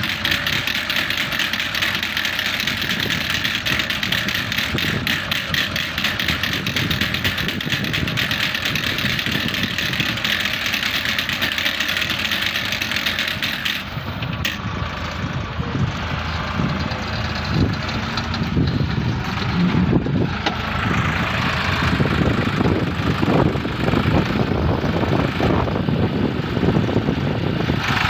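Massey Ferguson 260 tractor's three-cylinder diesel engine running steadily under working load while pulling a mounted maize planter.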